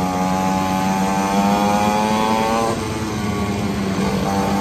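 Xpro 50cc two-stroke mini pit bike engine running under throttle, its pitch edging up, then dropping off sharply just before three seconds in and picking back up near the end.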